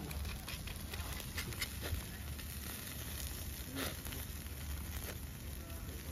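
Chicken pieces sizzling on a wire-mesh grill over an open wood fire, with scattered crackles and clicks.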